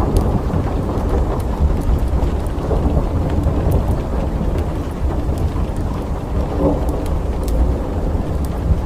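Thunderstorm: a continuous low rumble of thunder under steady rain, with scattered sharp ticks of drops striking nearby.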